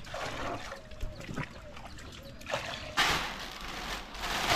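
Water pouring and splashing, a steady rush that gets much louder about three seconds in.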